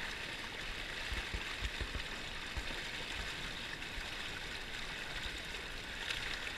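River current rushing and splashing past the float of a small pontoon boat: a steady wash of water.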